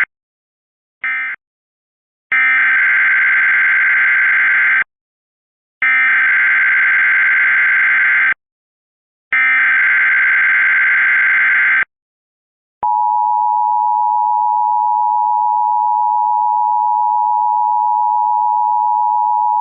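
Emergency Alert System signalling. Two short bursts of screeching digital data tones close the previous message. Then three longer identical data bursts of about two and a half seconds each, a second apart, carry the SAME header for the next alert. About thirteen seconds in, the steady two-tone EAS attention signal starts and holds.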